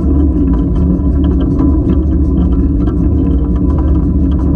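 Steam locomotive Spreewald's wheels and running gear rolling along the track: a loud, steady rumble with a fast scatter of small clicks and clanks.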